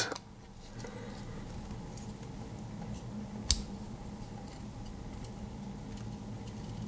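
Victorinox Classic SD pocket knife being handled as its small tools are worked: faint light clicks and one sharp click about three and a half seconds in, over a low steady hum.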